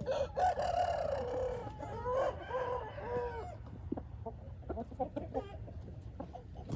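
A rooster crowing: one long falling call, then several shorter arched notes, over about three and a half seconds. Scattered short clucks and clicks follow, over a steady low hum.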